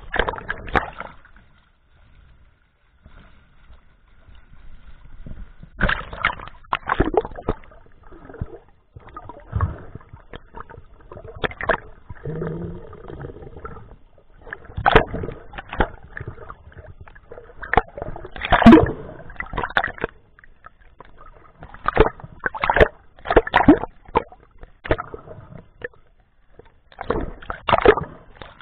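Bubbling and sloshing water heard underwater, with irregular gurgling bursts of scuba exhaust bubbles every few seconds as divers descend a rope line near the surface.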